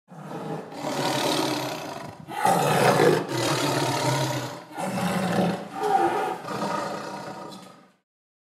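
A tiger roaring several times in a row, rough, loud calls separated by short breaths, stopping about eight seconds in.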